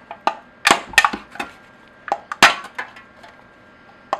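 A pointed hand tool punching holes in empty aluminium soda cans: a run of about ten sharp clicks and crinkling pops at uneven intervals, the loudest about a second in and again past halfway.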